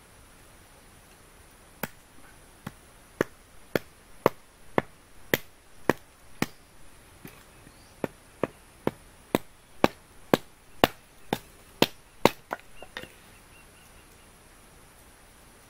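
Wood being chopped: about twenty sharp blows, roughly two a second, with a short break about seven seconds in. A steady, high-pitched insect drone runs underneath.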